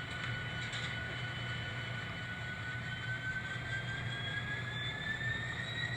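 N scale model locomotive running on a test run down the main line, its steady whine rising gradually in pitch over the last few seconds, over a low hum.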